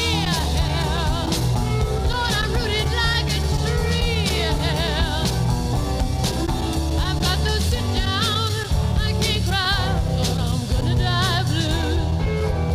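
Psychedelic-rock band instrumental break: an electric lead guitar plays a solo of bent notes with wide vibrato over bass guitar and drums.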